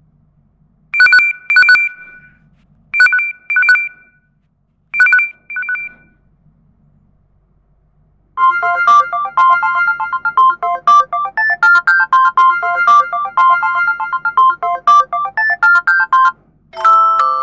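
LG GW300 mobile phone ringtones. First a classic telephone-style ring: three short double rings about two seconds apart. Then, after a pause, a fast melodic ringtone of about eight seconds, and a third ringtone starts near the end.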